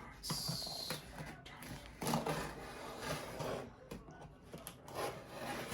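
Keyboard packaging being handled: cardboard box and wrapping sliding and rustling in irregular bursts, with a brief high hissing scrape just after the start.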